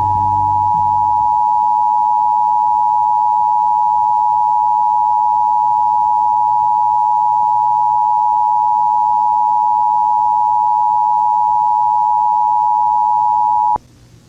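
Emergency Broadcast System two-tone attention signal: a loud, steady dual tone a little under 1 kHz that cuts off abruptly near the end, leaving faint hiss. It is the alert that an emergency message is about to follow.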